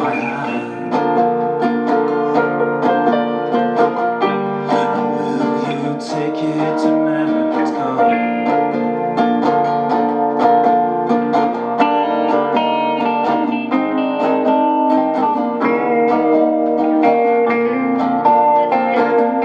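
Instrumental music led by plucked acoustic guitar, with sustained chords underneath and a steady flow of picked notes.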